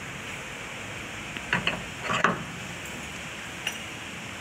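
Metal tools and parts being handled on a workbench: a few short metallic clicks and a scrape between about one and a half and two and a half seconds in, and a faint click near the end.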